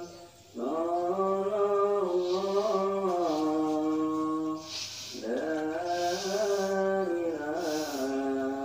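A single voice chanting or singing in long, drawn-out phrases: held notes with a wavering pitch, two phrases, each starting with an upward slide, with a short break about five seconds in.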